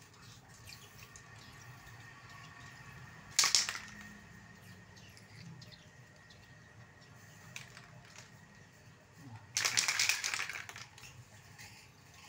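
Aerosol epoxy spray-paint can hissing in two bursts: a short puff about three seconds in and a longer spray of about a second near the ten-second mark.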